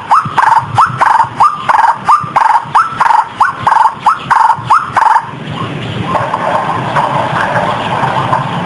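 White-breasted waterhen calls, a quick series of sharp rising notes at about three a second. About five seconds in, they give way to a denser, rougher chattering. This is a played lure call used to draw waterhens in.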